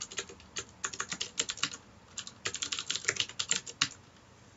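Typing on a computer keyboard: quick runs of keystrokes with a short break about two seconds in, stopping shortly before the end.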